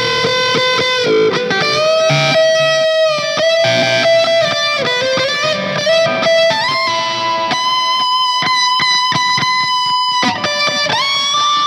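SQOE SEST250 electric guitar played through an M-VAVE Cube Baby effects unit: a melodic lead solo of sustained notes with bends, one long held note in the second half and a slide up near the end.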